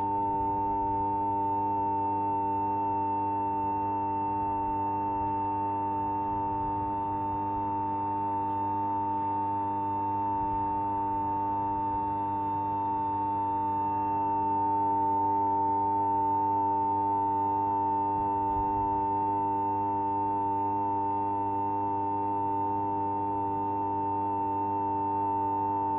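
High-pitched humming sound effect: one steady, unbroken high tone over a fainter low buzz, holding the same pitch and loudness throughout.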